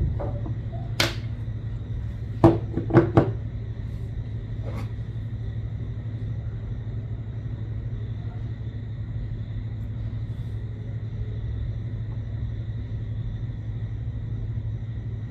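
Steady low hum throughout, with a few short, sharp clicks of small hard objects being handled about one to five seconds in, including a quick cluster of three around three seconds.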